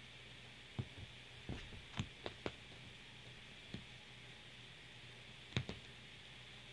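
Faint soft thumps and scuffs from a kitten moving and twisting on a fabric sofa cushion, a handful of separate knocks, the loudest about two seconds in and another near five and a half seconds, over a steady low hiss.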